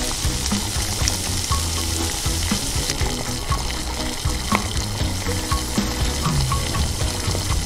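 Food sizzling in a hot wok, a steady hiss, with background music over it.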